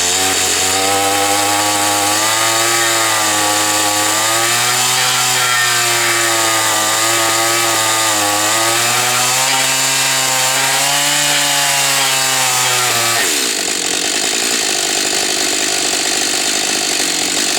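Husqvarna 562 XP two-stroke chainsaw running hot, its engine speed wavering up and down for about thirteen seconds. Its pitch then drops away and a rougher, more even noise carries on. The saw is being run warm to test its trouble restarting when hot.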